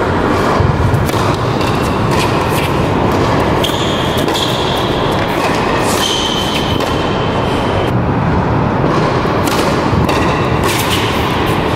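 Tennis rally on an indoor hard court: sharp pops of the ball struck by rackets and bouncing, with a few short high shoe squeaks, over a steady loud background hiss from the hall.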